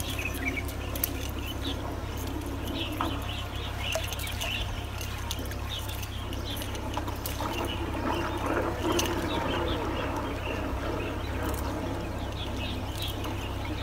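Water trickling and dripping off a wet monofilament cast net as it is hauled out of the water hand over hand, with scattered small ticks and chirps.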